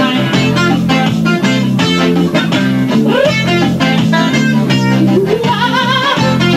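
Live band playing: strummed guitars with a steady rhythm over sustained low notes, and a wavering melody line coming in over the top near the end.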